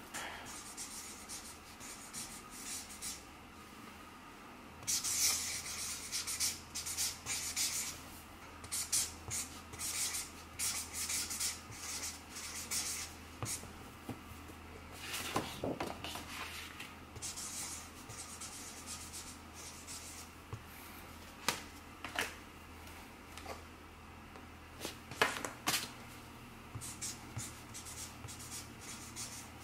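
Thick Sharpie marker rubbing across cardstock mailers as names are handwritten, in clusters of short scratchy strokes. A few sharper taps and knocks come between the names, the loudest a little past two-thirds of the way through.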